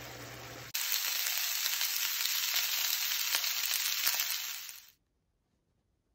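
Food sizzling in oil in a frying pan: a steady hiss from frying lobster mushroom pieces and garlic, then, after a sudden jump about a second in, a louder crackling sizzle from a pan of rice with mushrooms and peas. The sizzle fades out near the end, leaving near silence.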